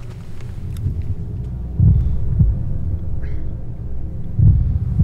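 Tense film sound design: a low, steady drone with deep, slow heartbeat-like thumps in lub-dub pairs, one pair about every two and a half seconds.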